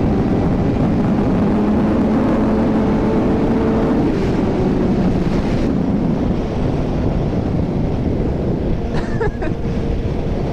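Motorcycle engine running under way, mixed with heavy wind rush on the rider's microphone. A steady engine note stands out for a couple of seconds, starting about a second and a half in.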